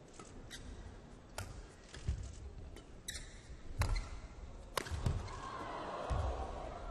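Badminton rally: sharp racket strikes on the shuttlecock roughly every second, mixed with heavy thuds of the players' footwork on the court. Crowd noise swells near the end.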